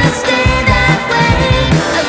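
Background music with a steady beat and bass notes.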